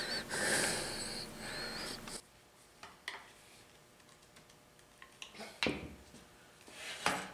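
Breath and rustling right at the camera microphone for about the first two seconds, with a faint wavering whistle. After that it is quiet apart from scattered light clicks, a sharp knock near the middle and a short rush of noise near the end.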